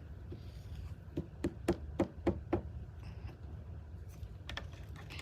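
A quick run of six light taps, about four a second, followed by a few fainter clicks near the end.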